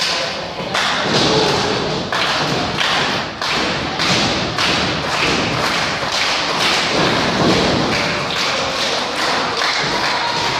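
Sharp thuds coming in an even beat, about two a second.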